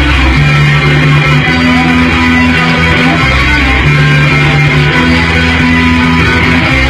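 Loud live rock band playing, with electric guitar strummed over held bass notes that change about every second.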